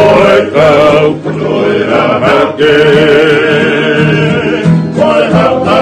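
Men's group singing a Tongan kava-club (kalapu) song in harmony, holding long notes with vibrato, to strummed ukuleles and an acoustic guitar.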